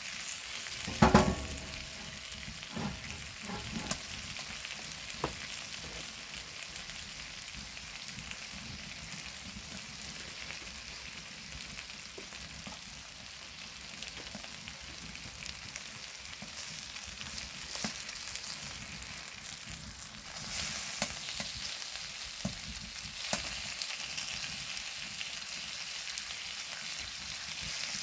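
Pork belly and gopchang sizzling steadily on a flat stone slab heated on a wood-burning stove. There is a loud clink with a short ring about a second in and a few lighter clicks after it. The sizzle grows louder briefly about twenty and twenty-three seconds in.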